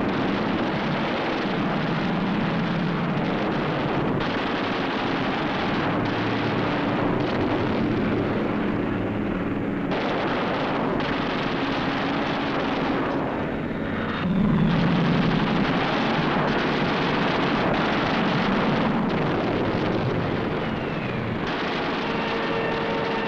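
World War II piston fighter-plane engines droning loudly and steadily on an old film soundtrack. The mix shifts abruptly at several cuts and swells louder just past the middle.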